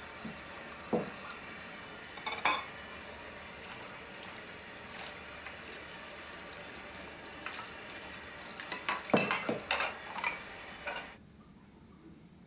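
Drinking glasses and dishes clinking on a kitchen counter: a few single clinks spread out, then a quick run of several about nine to ten seconds in, over a steady room hiss that cuts off near the end.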